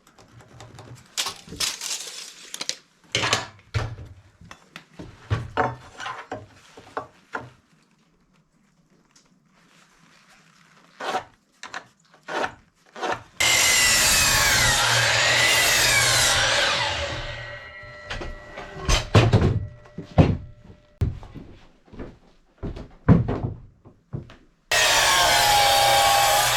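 Wooden boards knocking and clattering as lumber is handled. Then a power saw runs through a board for about four seconds and winds down. After more knocks of wood, the saw starts again near the end.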